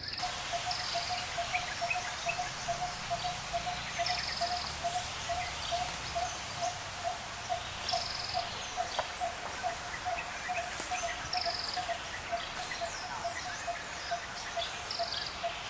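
Forest ambience: a steady series of short calls at one pitch, about three a second, with a high buzzy trill every few seconds over a light background hiss.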